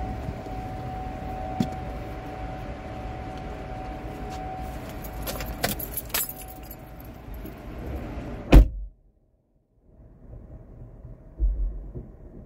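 Small clicks and movement inside a parked car's cabin, then the car door slams shut about two-thirds of the way through, after which it goes much quieter. A dull thump comes near the end.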